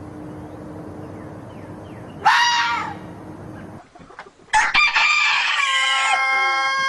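Rooster crowing. A short loud call comes about two seconds in. After a break, a long crow starts at about four and a half seconds and settles into a held steady note.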